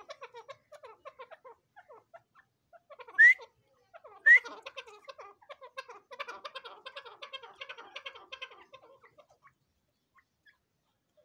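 Francolins (dakhni teetar) making quick soft clucking calls as they feed, with two loud, short rising calls about three and four seconds in. The clucking thickens after about six seconds and dies away shortly before the end.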